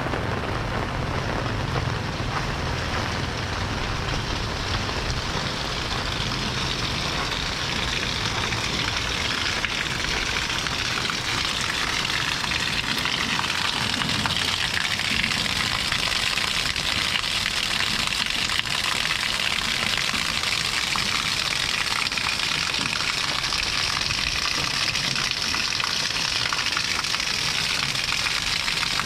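Steady rain falling, a continuous even hiss, with a low rumble underneath that is stronger in the first half and fades.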